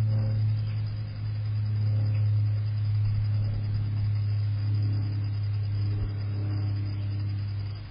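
Steady low mechanical hum, like a motor or engine running close by.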